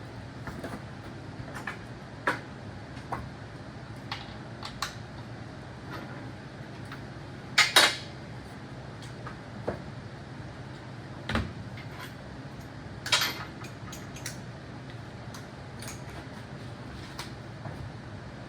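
Hand tools and metal parts clinking and knocking at irregular intervals, with the loudest clanks about eight and thirteen seconds in, over a steady low hum.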